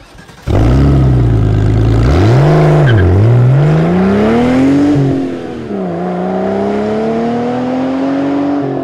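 Car engine revving loudly. It cuts in suddenly at a low steady note, swings up and down in pitch, climbs and drops, then rises slowly and steadily.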